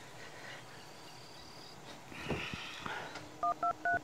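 Mobile phone keypad dialing tones: three short two-tone beeps in quick succession near the end, about four a second, as numbers are keyed in.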